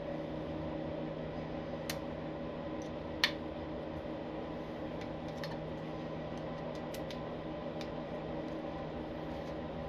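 Steady hum of a fan or motor running in the shop, with a few light metallic clicks as an Allen key turns a screw into a motorcycle clutch cover, the loudest about three seconds in.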